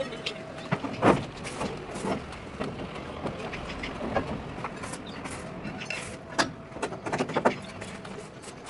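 Irregular small knocks and clicks of a plastic bottle, a paint tin and a small cup being handled and set down on a concrete slab, the loudest about a second in and a quick cluster near the end.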